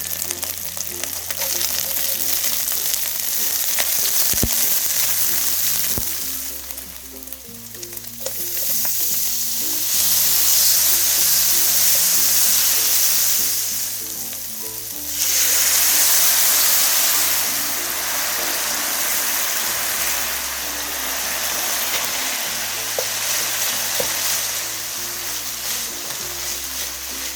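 Kkakdugi fried rice sizzling in a hot frying pan, the sizzle swelling and easing several times as it fries. Background music with a slow bass line runs underneath.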